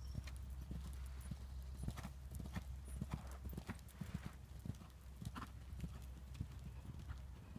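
Hoofbeats of a grey horse cantering on sand arena footing: a quick, uneven run of soft thuds.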